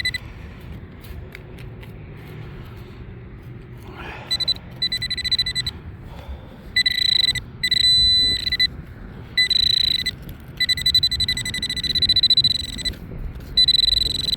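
Nokta Accupoint pinpointer sounding its fixed high-pitched beep in on-and-off stretches from about four seconds in, turning into an unbroken tone near the end as it picks up metal close by. Wind rumbles on the microphone underneath.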